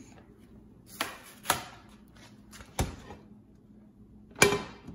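Four sharp knocks and clatters of kitchenware, the loudest near the end, as a frying pan is set down on a glass cooktop.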